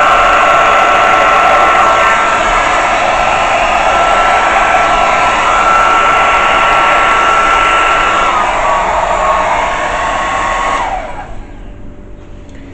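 Hand-held hair dryer running steadily, a rush of air with a constant whine, blowing wet acrylic paint across a canvas. About eleven seconds in it is switched off and the whine falls away as the motor spins down.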